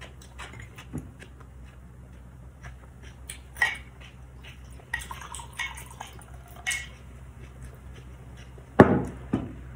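Liquid poured from a plastic pitcher into a glass mug, with several light clinks of pitcher and glass. A louder short sound comes near the end.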